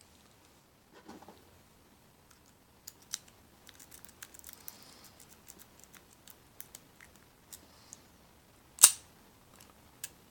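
Lock pick rake scraping and clicking over the pin tumblers of a Master Lock No. 5 padlock, in light irregular clicks. Near the end comes one loud sharp snap as the lock opens.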